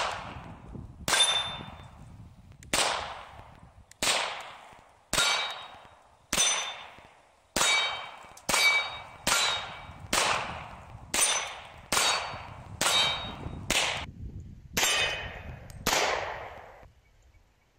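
CZ P09 pistol in .40 S&W firing about sixteen shots at roughly one a second, the pace quickening in the middle, with steel targets ringing on hits; the shooting stops about two seconds before the end.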